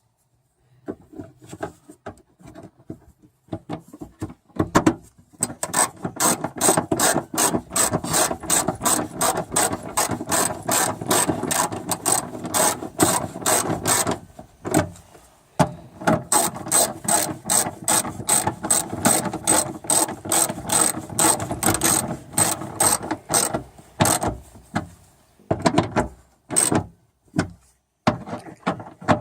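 Hand socket ratchet clicking quickly as the bolts holding the spoiler and third brake light are tightened: two long runs of rapid, even clicks with a brief pause about halfway, then a few last clicks near the end.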